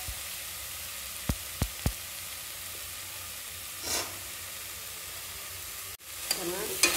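Vegetables and sambar powder frying in oil in an aluminium pressure cooker, a steady sizzling hiss. Three quick taps come a little over a second in, and a short louder rustle of stirring comes around four seconds in.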